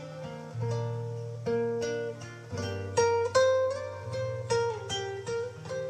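Instrumental music on plucked strings: single notes picked one after another over low bass notes that are held and then change.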